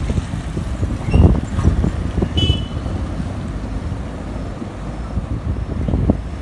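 Traffic on a flooded street: a loaded truck and motorbikes driving through shallow water, with wind rumbling on the microphone. A brief high chirp sounds about two and a half seconds in.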